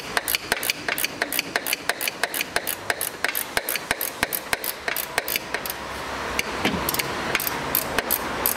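Ratchet wrench clicking rapidly, several clicks a second, as the bolts of an upper suspension arm are run in but not yet fully tightened.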